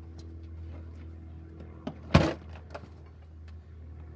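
Hand tools being handled while working on the car's front suspension: a few light clicks, then a sharp clack about two seconds in, just after a smaller knock, over a steady low hum.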